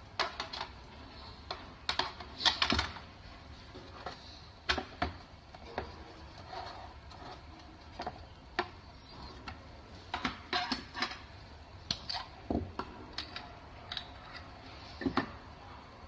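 Irregular clicks and light knocks of hard plastic being handled: a facial cleansing brush and its brush heads in a plastic storage case, with a louder cluster of clicks about two and a half seconds in.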